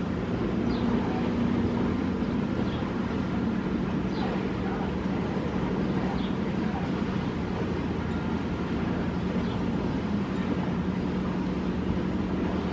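Motorboat engines droning steadily out on the lake, a constant low hum, with faint short high chirps every second or two.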